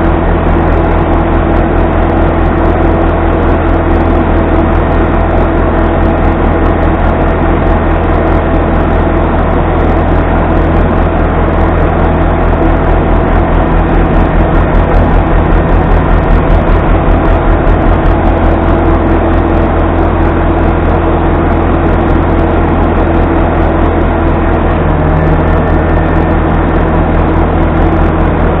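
Steady machine drone with a constant low hum, holding one pitch throughout.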